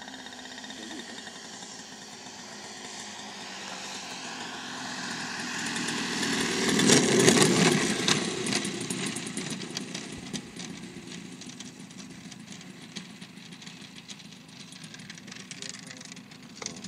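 Engine of a radio-controlled model airplane in flight, passing close by: it grows louder to a peak about seven seconds in, then fades away as its pitch drops.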